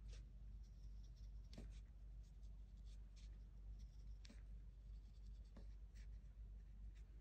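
Faint scratchy strokes and taps of a fine paintbrush, dabbing paint in the wells of an edible paint palette and brushing it across a cookie, about half a dozen in all, over a steady low hum.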